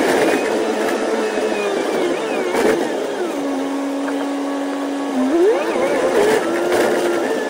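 A KMB Alexander Dennis Enviro500 MMC double-decker bus's engine and drivetrain, heard on board and played back at eight times speed, so the pitch is raised high. The pitch wavers and steps down, holds a steady hum through the middle while the bus waits at the lights, then rises quickly near the end as it pulls away.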